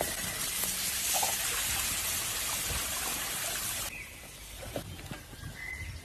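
Large meat patty sizzling in a wire grill basket over hot charcoal, a steady hiss that cuts off abruptly about four seconds in. A few light knocks follow.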